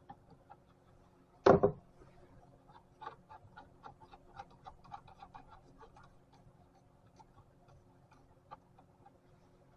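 Ratchet wrench clicking as it backs off a 13 mm bolt under the hood, light clicks about four to five a second for a few seconds, then a few scattered clicks. One short loud noise comes about one and a half seconds in.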